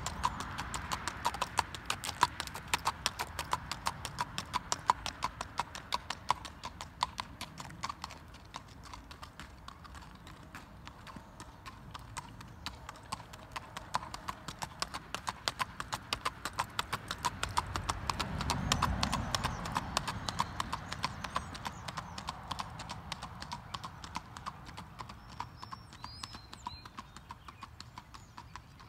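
Hoofbeats of a gaited horse, a steady clip-clop in a quick, even rhythm. They grow louder about two-thirds of the way through and fade near the end.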